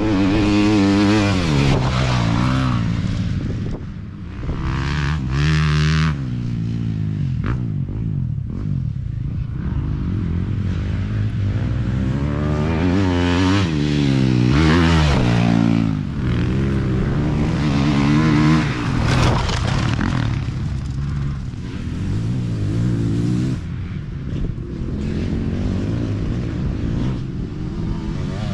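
Racing dirt bike engines revving hard and shifting as riders pass at speed, the pitch climbing and dropping again and again through the gears, with more than one bike heard toward the end.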